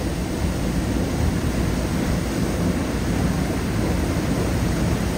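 Water gushing from a sheared-off fire hydrant, a steady loud rushing noise that does not change.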